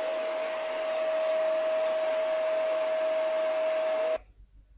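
A small electric appliance running: a steady whirring rush with a constant hum that cuts off suddenly about four seconds in.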